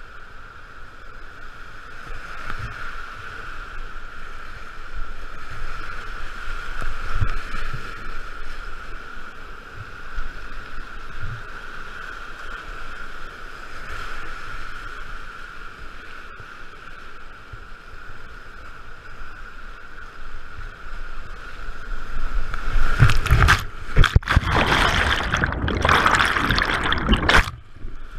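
Whitewater rapid rushing around a kayak as it runs through waves. Near the end there are about four seconds of much louder, choppy splashing and crashing water, which stop abruptly.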